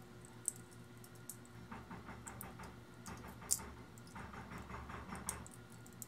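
Microwave oven transformer connected straight to mains, with a steady hum and, from about two seconds in, a spell of crackling with a few sharp clicks: the primary winding frying under heavy current, a winding the owner suspects has shorted turns.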